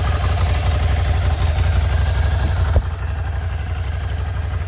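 Ducati Monster 797's air-cooled 803 cc L-twin idling steadily through its stock exhaust. A single click sounds a little before three seconds in, after which the engine sounds slightly duller.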